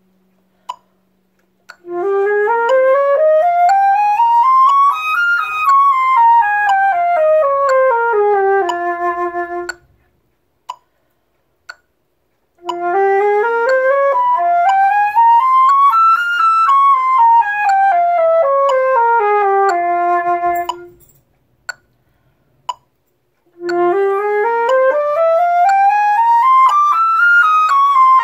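Flute playing an F minor scale over two octaves, stepping up from the low F and back down to end on a held low F. The scale is played three times with short pauses between, the third still going at the end.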